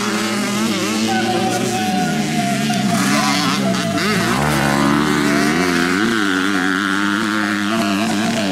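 Motocross dirt bike engines revving hard, the pitch rising and falling again and again with throttle and gear changes, with a second, higher-pitched engine joining over the middle part.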